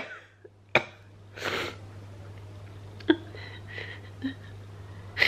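A woman crying quietly between words: a long sniff about a second and a half in, among soft breaths and wet mouth clicks, over a low steady hum.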